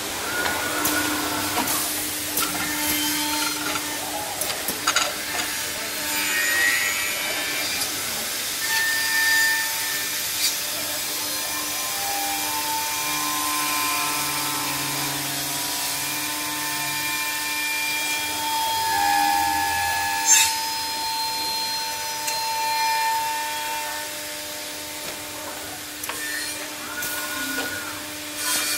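Bacci Double Jet 13-axis CNC machining centre working wooden chair rails: its circular saw blades and spindle heads run and cut the wood with a steady motor whine and sawing noise. Sharp clicks and knocks come and go, one of the loudest about twenty seconds in.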